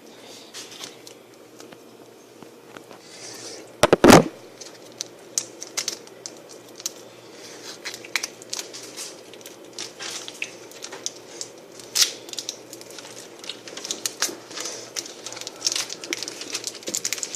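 MRE plastic packets being handled, crinkling and tearing with many small clicks, and one loud knock about four seconds in.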